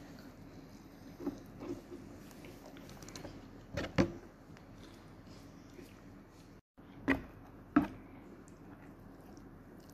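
Quiet room noise with a few scattered sharp clicks and knocks: the loudest about four seconds in, then two more in quick succession about seven seconds in. These are wooden chopsticks handling instant ramyeon noodles in a bowl.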